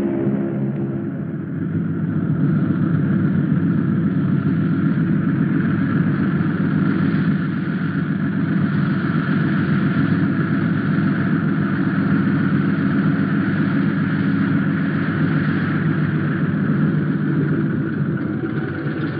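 Music fades out in the first second or two, giving way to a steady, noisy engine drone of a vehicle.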